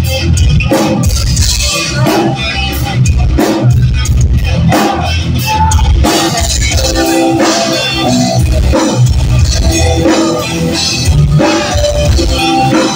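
A live metal band playing loud, with pounding kick drum and drums under distorted guitars, heard from the crowd. About six seconds in, the music gets fuller and brighter as a new section starts.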